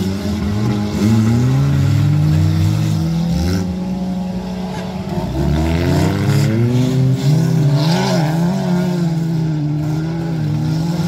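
Several stock car engines revving hard together as the cars race through a dirt-track bend, their pitches climbing and dropping with throttle.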